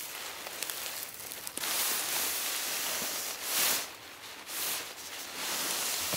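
A thin silicone-treated nylon tent fly rustling and swishing as it is handled and lifted while a pole is fed through its sleeve, swelling louder a few times.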